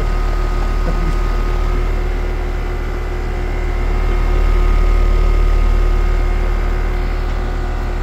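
Outdoor air-conditioner condensing unit running steadily while being charged with refrigerant: a low compressor-and-fan hum with a few steady whining tones, swelling a little around the middle.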